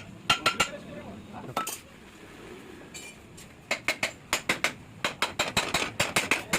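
Runs of quick, light metal-on-metal taps with a brief ring, from fitting the crankcase half onto a Yamaha two-stroke motorcycle engine during assembly. About four taps near the start, a single one a little later, then longer runs of taps through the second half.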